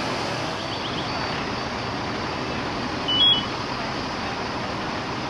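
Fire apparatus engines running with a steady noise, and a short high beep a little past three seconds in.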